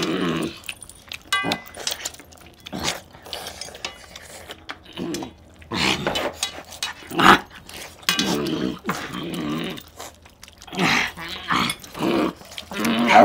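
Growl-like sounds in several spells of a second or two each, over people eating chicken curry with their hands from steel plates, with scattered clinks and clicks.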